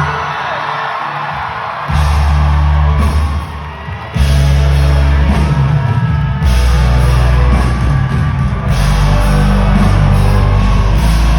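Rock band playing live, loud. The passage is thin at first; the bass and drums come in hard about two seconds in, drop out briefly just before four seconds, then the full band drives on steadily.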